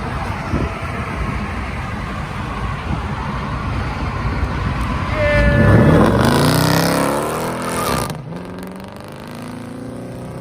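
A car's exhaust swelling loud as it drives past, its engine note sweeping in pitch, loudest about six seconds in and dropping off suddenly near eight seconds; a steady lower engine rumble runs before and after it.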